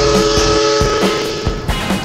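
Background music with held chords over a soft, steady beat.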